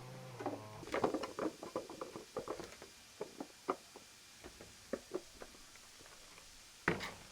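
A run of light, irregular knocks and taps, several a second at first and then thinning out, with one louder knock near the end.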